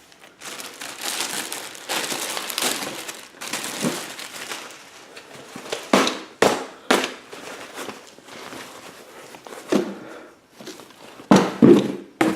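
Crinkling and rustling as a Condor MOPC plate carrier is unpacked from its packaging and handled, with several sharp snaps in the second half.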